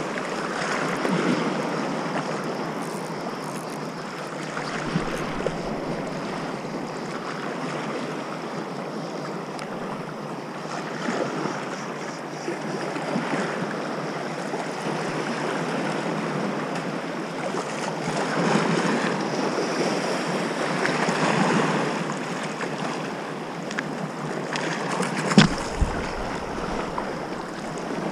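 Small sea waves lapping and washing in shallow water, swelling and easing every few seconds, with some wind. One sharp click near the end.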